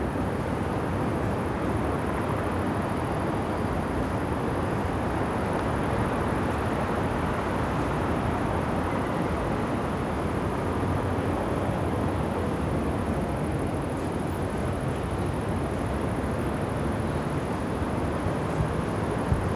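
Steady wash of distant city traffic, an even rumble with no single vehicle standing out, and a faint steady high-pitched hiss above it.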